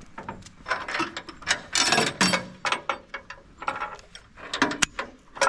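Irregular clicking and clanking of trailer hardware being handled, a ratchet tie-down strap and the steel mesh trailer gate. It comes as a string of sharp clicks with a denser clatter about two seconds in.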